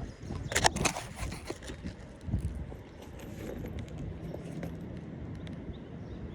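Roofing work on asphalt shingles: a cluster of light clicks and scrapes about half a second to a second in, a few softer ones after, as the hammer and nails are handled once the nailing stops. The rest is a steady low background noise.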